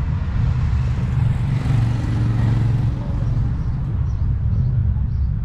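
Motorcycle engines running as bikes ride past at low speed, one passing close and loudest about two seconds in.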